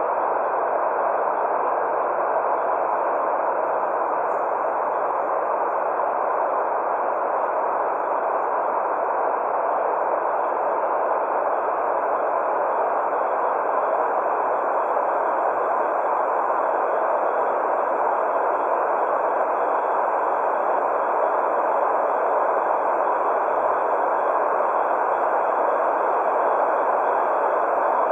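Continuous white noise for baby sleep: an even, unchanging shushing hiss centred in the middle range, with faint steady high tones above it.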